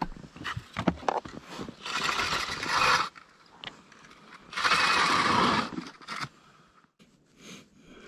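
Plastic tackle boxes and fishing gear being handled: a few sharp clicks of lids and latches, then two stretches of scraping and rustling, each about a second long.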